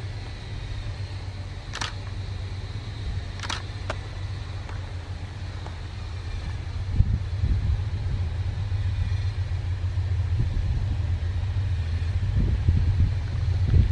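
Two GE diesel-electric locomotives, a C44EMi leading and a C30-7, hauling a heavy freight train, their engines a steady low rumble that grows louder from about halfway through as they approach. Two short sharp clicks sound about two and three and a half seconds in.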